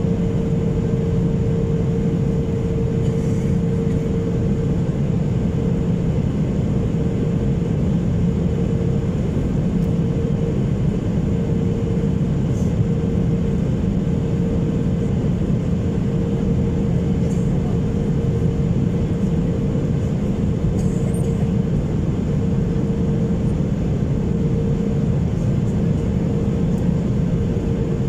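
Cabin noise of an Airbus A320neo on its descent, heard from a window seat beside the engine: a steady rush of airflow and engine drone with a constant hum-like tone running through it.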